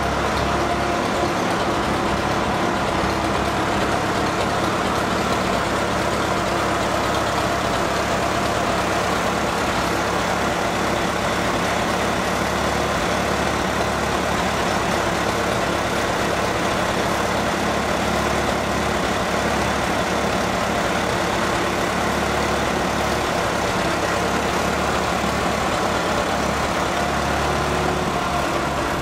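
1961 Farmall 504 tractor engine idling steadily.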